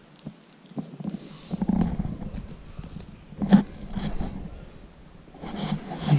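Fabric rustling and handling bumps as the handheld camera and bedding are jostled during close cuddling with a puppy: an uneven shuffle with a few soft thumps, the loudest about halfway through.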